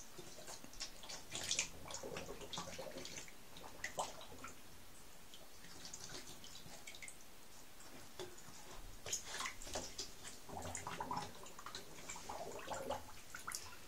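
Shallow bathwater in a tub dripping and splashing in small irregular bursts, with bubbling as a Scottish terrier dips its muzzle into the water and blows bubbles.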